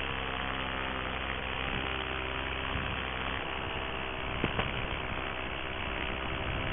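Paramotor trike engine and propeller running steadily in cruise flight, a constant droning hum.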